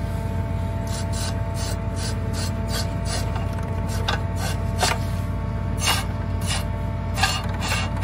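Metal parts of a planter row unit scraping and clicking as they are worked by hand to check whether a part is locked down. A run of short scrapes, over a steady engine drone.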